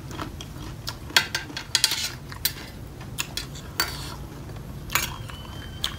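Metal spoon clinking and scraping against a bowl of food: a string of irregular light clicks.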